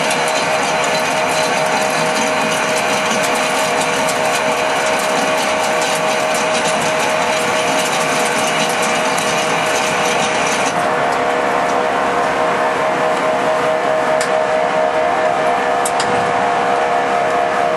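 Small CNC pipe-threading lathe running, with a steady gear whine under a dense, high mechanical rattle. The rattle drops away suddenly about eleven seconds in, leaving the whine, and two sharp clicks follow a little later.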